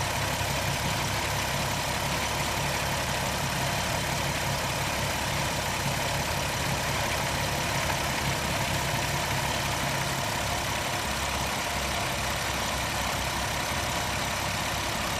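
2007 Jeep Wrangler Unlimited's engine idling steadily, heard at the open engine bay.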